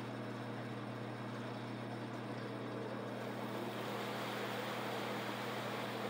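Planer-molder running steadily as a pine board feeds through its cutters: a constant motor hum under a hiss that grows louder about three seconds in.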